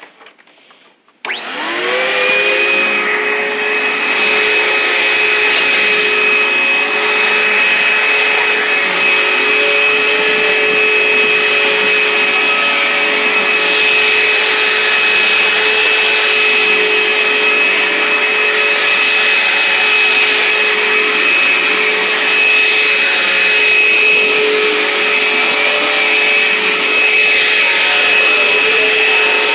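Sanitaire QuietClean upright vacuum cleaner switched on about a second in, its motor spinning up to speed with a rising whine, then running steadily with a high whine over a rushing noise as it vacuums a rug.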